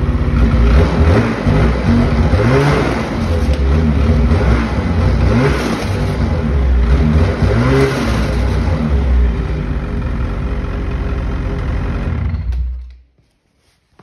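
Ski-doo 850 Turbo snowmobile's two-stroke twin engine running, blipped several times in short revs to spin the track, then shut off about twelve and a half seconds in.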